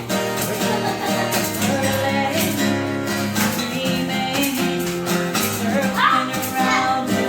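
Live acoustic music: a strummed acoustic guitar with a woman singing over it.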